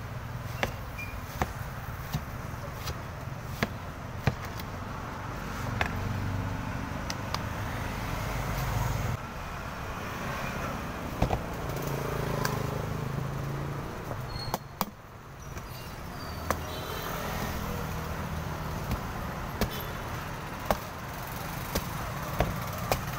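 Cleaver chopping and shaving the husk of young green coconuts against a wooden board: sharp, short chops every second or so, over a steady low rumble.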